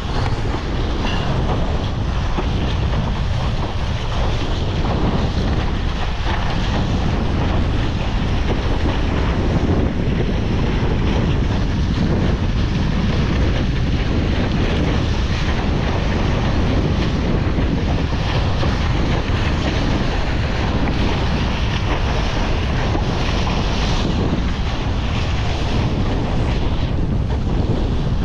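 Steady wind buffeting the camera microphone, over the rush and splash of water along a Mistral One Design windsurf board's hull as it sails through gusty, choppy water.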